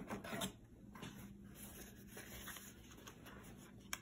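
Faint rustling and light knocks of cardboard boxes and foam packing being handled, with a short sharp click near the end.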